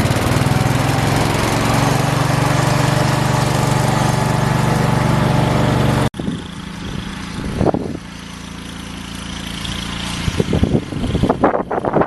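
Small garden tractor engine running steadily and loudly close by for about six seconds, then cutting off abruptly. After that, a quieter engine hum with scattered knocks and clatter that build toward the end.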